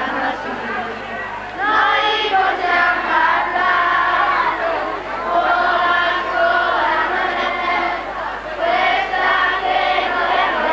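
A group of children singing together as they walk, in phrases of a few seconds with short breaks between them.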